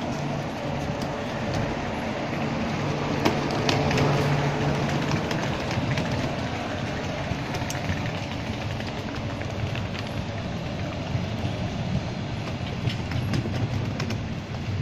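Russian Railways double-deck passenger coaches rolling slowly past along the platform. A steady low rumble, heaviest a few seconds in, with scattered sharp clicks and knocks through it.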